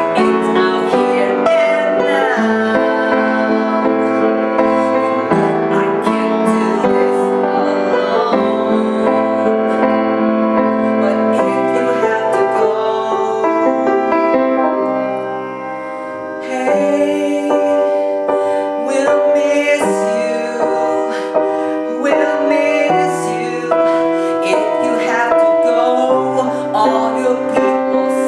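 Piano-led instrumental music with sustained chords, dropping quieter about fifteen seconds in and coming back fuller a second later.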